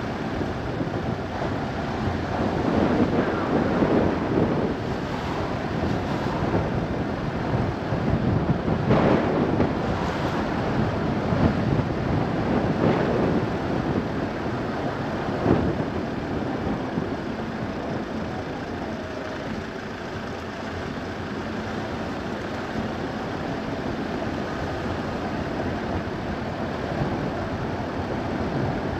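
Steady road noise of a car driving: tyre roar and wind rush, swelling several times in the first half with a few brief louder rushes.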